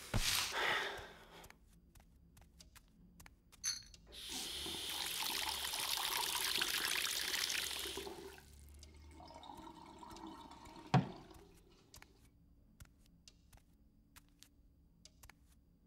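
Water running from a kitchen tap for about four seconds while a glass is filled. A single sharp knock follows a few seconds later.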